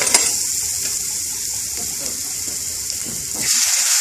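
Onion, spice and tomato purée mixture sizzling in hot oil in an aluminium frying pan, with a clink of the metal spoon against the pan near the start. About three and a half seconds in, the sizzle turns louder and hissier as base gravy is ladled into the hot pan.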